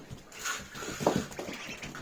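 A few short animal calls, the loudest about a second in.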